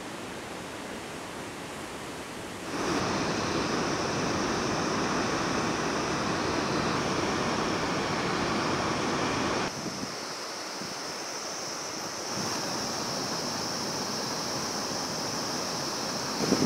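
Rushing water from a mountain waterfall and stream, a steady noise that grows louder about three seconds in, drops back near ten seconds and rises a little again about two seconds later.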